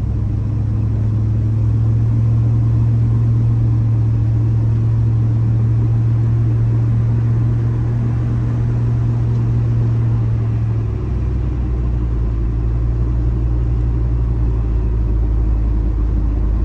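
Swapped-in 5.3-litre LS V8 of a 1977 Ford F150 pulling the truck down the road, a steady low drone heard from inside the cab. About eleven seconds in the drone drops to a lower pitch as the revs fall.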